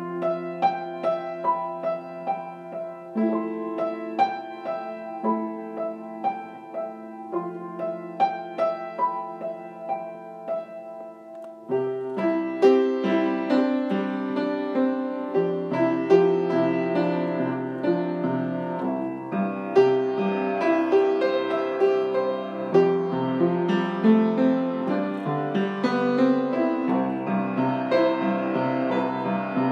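Gentle piano music: slow, sparse notes at first, growing fuller and busier about twelve seconds in.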